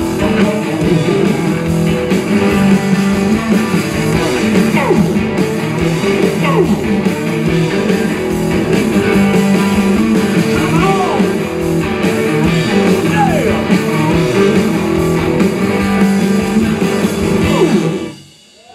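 Live rock band of two electric guitars and drums playing loud, with guitar notes sliding and bending in pitch. The music stops abruptly near the end.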